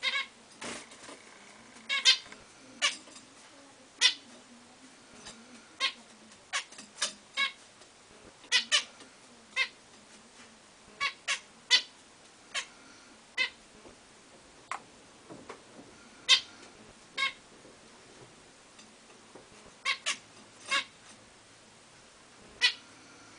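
Aviary finches, zebra finches among them, calling: short single call notes at irregular intervals, roughly one a second, sometimes two in quick succession.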